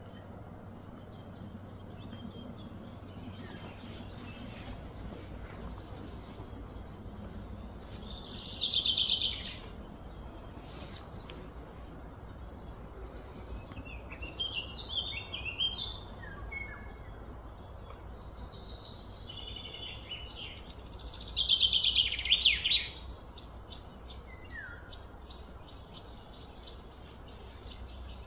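Wild birds chirping on and off over a steady low background hum, with a louder trilled call sliding down in pitch, about a second and a half long, twice: about eight seconds in and again around twenty-one seconds.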